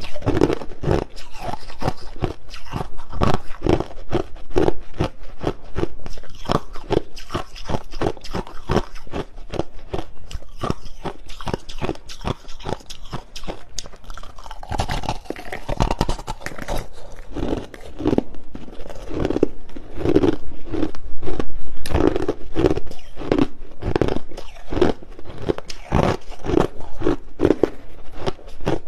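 A person chewing hard, clear crushed ice close to the microphone: loud, rapid crunching and cracking with bites coming several times a second, without pause.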